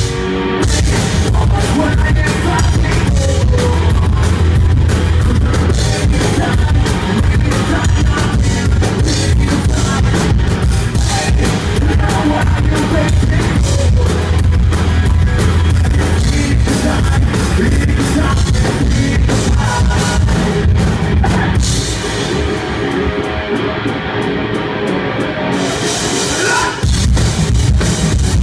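Rock band playing live: electric guitar, bass guitar and drum kit, with singing. About 22 seconds in, the drums and cymbals drop out for a few seconds, then the full band comes back in near the end.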